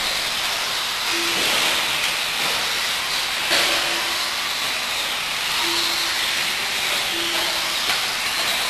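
Electric 1/10-scale 4wd RC buggies racing around the track: a steady hiss of motors and tyres, with four short whines.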